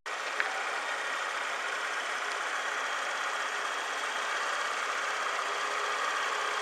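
Honda Today 50cc scooter's four-stroke single-cylinder engine idling steadily.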